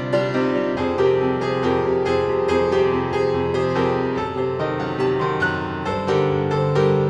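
Instrumental piano music, notes struck several times a second over held low chords that change about a second in and again near the end.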